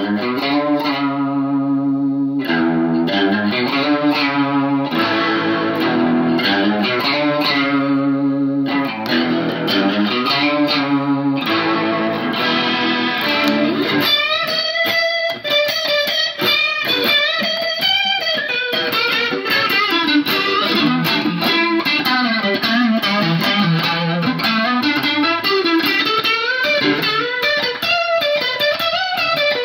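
Electric guitar played through a Danelectro Money Laundry rotary-speaker emulator pedal, the notes wobbling with a Leslie-style rotary effect. Strummed and held chords for about the first half, then fast single-note lines higher up the neck.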